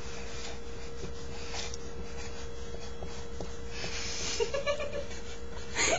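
Steady electrical hum and hiss from a low-quality webcam microphone, with a short loud breathy burst near the end.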